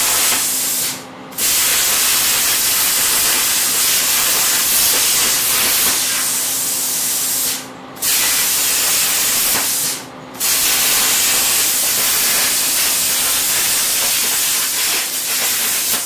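Handheld plasma cutter cutting steel plate: a loud, steady hiss of the arc and air jet. It cuts out briefly three times, about a second in, near eight seconds and near ten seconds, and restarts at once each time.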